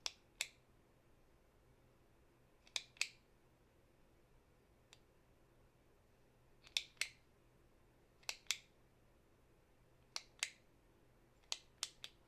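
Click pen clicked repeatedly: sharp double clicks, each pair a fraction of a second apart, coming every second and a half to three seconds, with a quick run of three clicks near the end.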